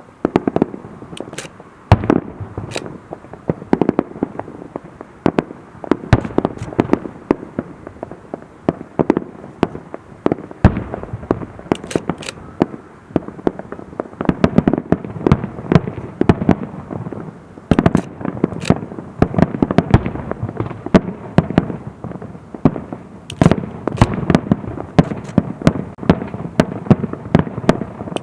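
Aerial fireworks display exploding: a rapid, irregular barrage of shell bursts, several bangs a second, with reverberating booms in between.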